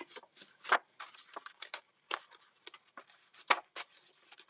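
Paper and card being handled: scattered light rustles, scrapes and taps of irregular strength, with two louder strokes, about a second in and midway through.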